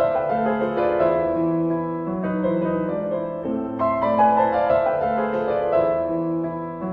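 Background music played on piano: slow, held notes with no voice over them.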